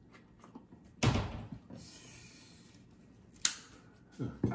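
A sudden loud thump about a second in, followed by a second or so of rustling, then a single sharp click near the end.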